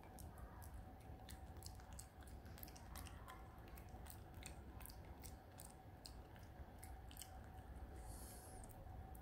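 Smooth-coat chihuahua gnawing a dental chew stick: faint, quick, irregular clicks of its teeth on the chew, over a low steady hum.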